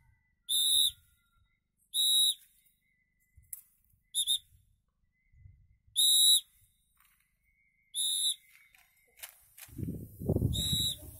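A handheld whistle blown in short, high, shrill blasts, about seven of them every one to two seconds, the signal used to call free-flying racing pigeons down to land. A low rumble of wind or handling noise comes in near the end.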